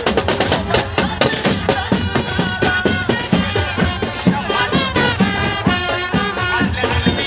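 Street brass band playing: saxophones and trumpets carrying a melody over a fast, steady beat on a large hand-beaten drum.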